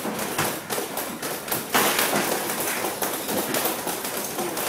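Muay Thai sparring in a boxing gym: a rapid, irregular series of slaps and thuds from gloved punches, knees and kicks landing, with footfalls on a wooden floor.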